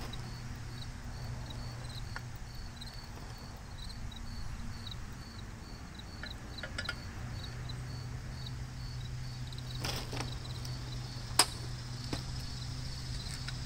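Insects chirping at an even pace, about two chirps a second, over a low hum. A few sharp metallic clicks and taps come from parts being handled on the engine, the sharpest about eleven seconds in.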